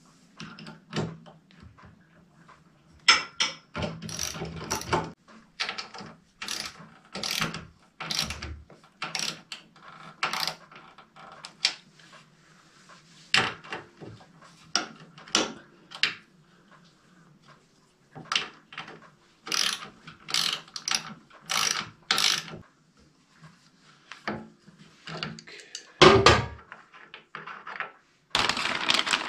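Irregular metal clicks, clinks and rattles of hand tools and fittings as a propane conversion regulator is fitted and tightened onto a generator, with louder clatters near the end.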